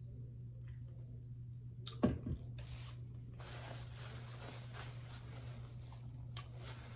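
Two heavy knocks about two seconds in as the glass mug is set down on the table. Then a paper napkin crinkles and rustles for a couple of seconds as it is unfolded and wiped across the mouth, over a steady low electrical hum.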